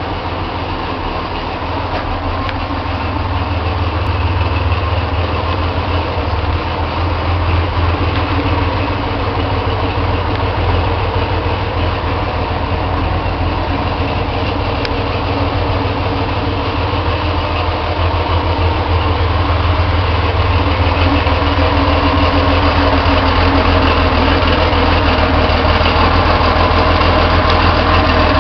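Porsche race car's engine idling steadily.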